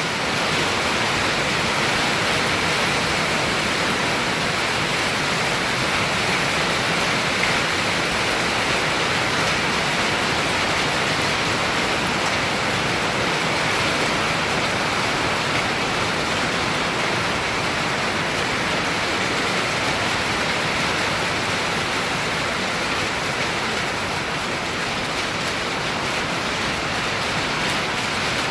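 Heavy rain mixed with hail coming down hard, a steady dense hiss with no let-up.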